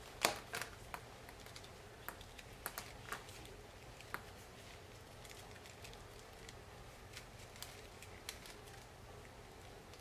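Thin bare branches clicking and crackling as they are bent and twisted into a hoop by hand. A cluster of sharp clicks comes in the first few seconds, the loudest just after the start, then fainter scattered ticks.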